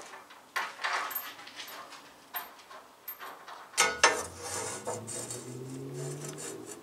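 Steel tools clinking and knocking against the bandsaw's cast-iron table, with a sharp metal clack at about 4 seconds as a steel square is set down against the blade, followed by a low hum.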